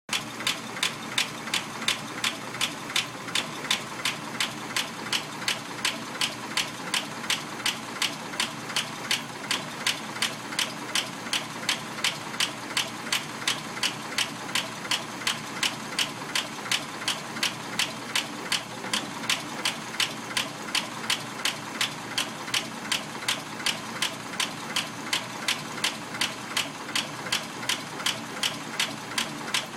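Packard engine idling with a steady, even lifter tick, a few ticks a second over the engine's running hum. The tick is typical of a noisy valve lifter.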